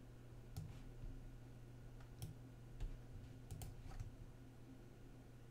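Faint, scattered clicks of a computer mouse, about eight single clicks with a pair close together about three and a half seconds in.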